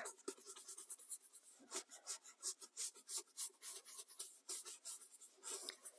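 Distress ink pad rubbed and dabbed around the edges of a paper cut-out: a quiet run of short, irregular scratchy strokes on paper.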